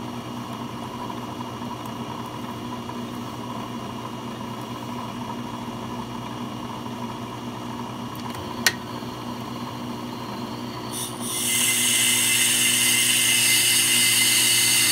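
Ammco brake lathe running with a brake rotor spinning on its arbor, a steady motor hum. A sharp click about two-thirds of the way in, then the cutting bits bite into the rotor and a loud, high scraping hiss of the cast iron being cut starts: the beginning of a fast rough cut.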